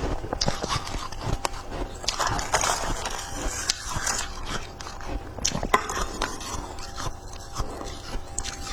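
Someone biting and chewing white freezer ice, a run of irregular crisp crunches.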